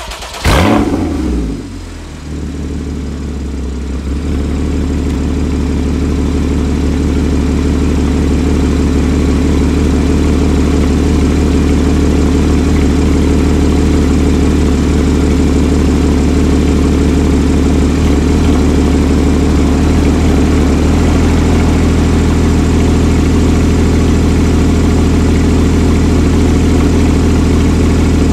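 Porsche Cayman S 3.4-litre flat-six with sports exhaust starting up, with a sharp rev flare about half a second in that falls away, then settling into a steady idle. About 21 s in the idle drops slightly to a lower, steadier note.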